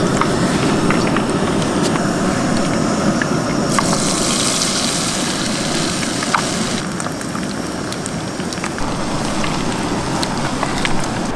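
Tempura-battered trout deep-frying in a small pot of hot oil on a backpacking gas stove: steady sizzling with scattered crackles and pops. The sizzle grows brighter for a few seconds in the middle.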